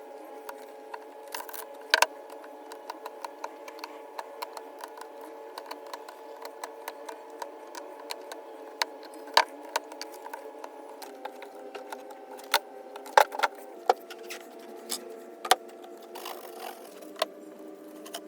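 Irregular sharp clicks and taps of tools and small parts being worked on a laptop during disassembly, the loudest about 2, 9.5 and 13 seconds in, over a steady background tone that shifts pitch twice.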